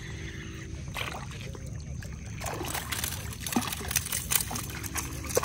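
A hooked fish splashing and thrashing at the water's surface as it is scooped into a landing net, the splashes coming thick and fast from about halfway through.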